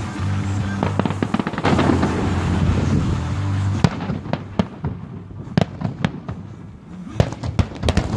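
Fireworks display: aerial shells bursting with sharp bangs and crackle, the reports coming thicker in the second half. A low steady hum sits under the first three seconds.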